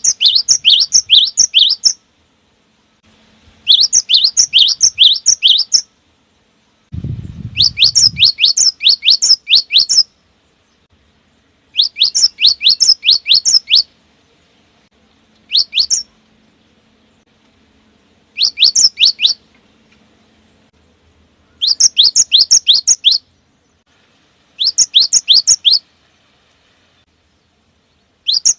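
Cinereous tit (gelatik batu) singing. The song comes in phrases of about two seconds, each a fast run of sharp repeated notes at roughly four a second, with short pauses between phrases. A brief low rumble sounds about seven seconds in.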